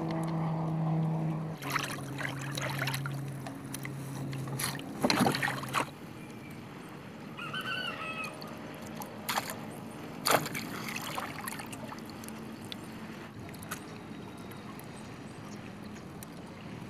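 Water lapping and sloshing against the hull of a small outrigger canoe, with a few sharp knocks as a handline is worked and a needlefish is brought aboard. A steady engine hum runs under the first several seconds, then fades out.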